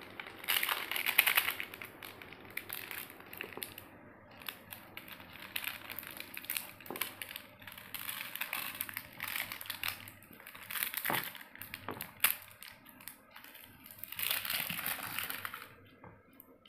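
Foil-lined plastic sachets crinkling and crackling as they are torn open and squeezed by hand, with sharp clicks in between; the crinkling is densest near the start and again near the end.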